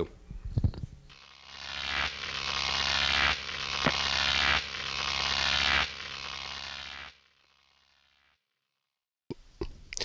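A buzzing, rattling mechanical noise that grows louder over about six seconds in a few stretches, with one sharp click partway through, then cuts off suddenly.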